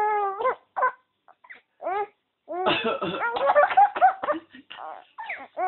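A man coughing while a five-month-old baby laughs at it in short, high-pitched squeals. The coughing and laughter bunch together in a dense stretch in the middle.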